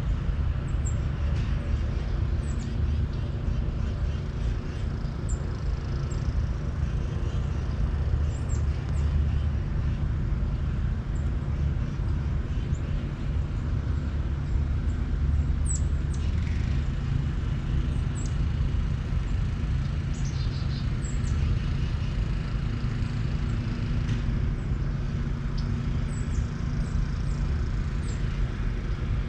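Outdoor morning ambience: a steady low rumble with short, high bird chirps and a few falling whistled calls scattered throughout. There are no club strikes.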